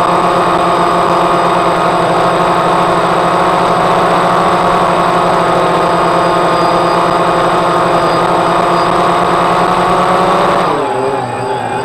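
DJI Phantom quadcopter's motors and propellers humming steadily at one pitch, heard from the camera on board the drone. Near the end the pitch drops and wavers as the motors slow.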